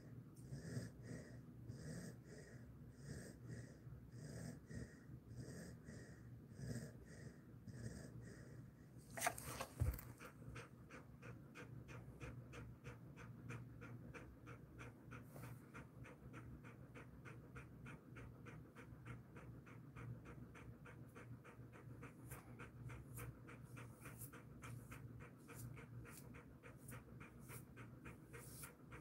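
Jindo-mix dog breathing softly in slow rhythmic breaths at first. After a sharp knock about nine seconds in, it pants steadily, about three quick breaths a second.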